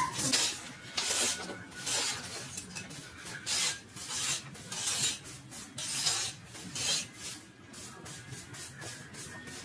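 Rhythmic scraping strokes, about one a second, growing weaker in the last couple of seconds.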